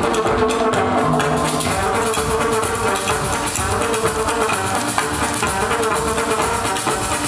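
Runway music with a steady beat, played over loudspeakers.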